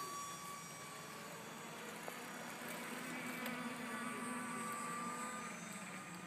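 Small aircraft engine buzzing in flight, a thin steady drone whose pitch drifts slowly and gets a little stronger in the middle.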